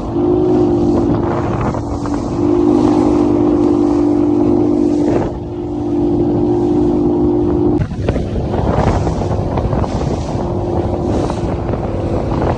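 Boat engine running at a steady pitch under a rush of wind noise. About eight seconds in, the engine note drops away sharply, leaving mostly wind and rushing noise.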